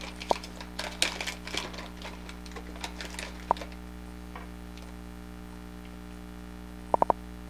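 Light clicks, taps and rustling from handling soft-plastic fishing baits and their packages on a table, over a steady electrical hum. The handling thins out after about three seconds, and a quick cluster of clicks comes near the end.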